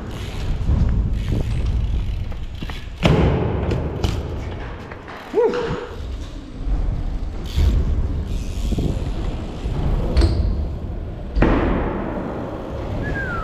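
BMX bike tyres rolling over a concrete skatepark floor, with two heavy landing thuds, one about three seconds in and another about eleven seconds in, and lighter knocks between them. A couple of brief squeaks cut through the rolling noise.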